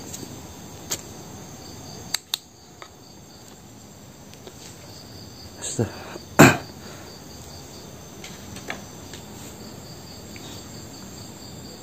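Crickets chirping steadily, with a few short sharp knocks and clicks; the loudest comes about six seconds in.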